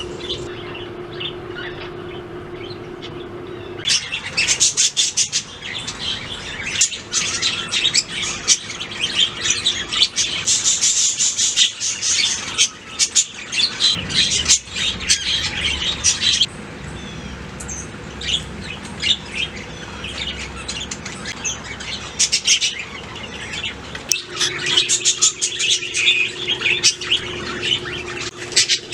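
Budgerigars chirping and warbling in quick chatter, busiest from about four seconds in to the middle and again near the end, sparser in between. A steady low hum sits behind the birds at the start and near the end.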